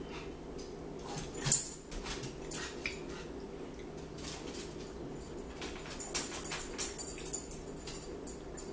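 Metal forks clicking and scraping against dinner plates during a meal: one sharper tap about one and a half seconds in, and a run of small clinks near the end. A faint steady hum runs underneath.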